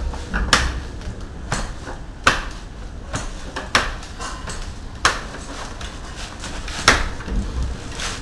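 Manual wheelchair with air-shock A-arm suspension being rocked and rolled on a concrete floor, the chair jolting on its shocks during a travel test. There are sharp metallic clunks at irregular intervals of about one to two seconds, the loudest near the end, over a low rumble of the wheels.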